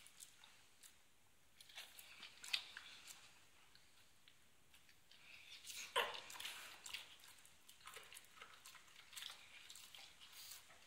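Bull terrier slowly chewing pieces of carrot, with faint, scattered crunches and mouth clicks; the loudest crunch comes about six seconds in.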